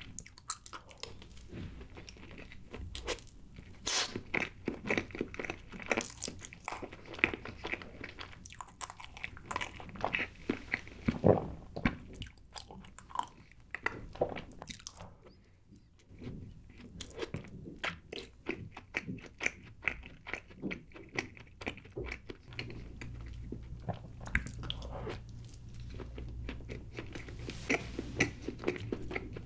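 Close-miked eating sounds of a person biting and chewing chocolate cake, with many small crunches. There is a brief pause a little past the middle, and a low steady hum comes in about three-quarters of the way through.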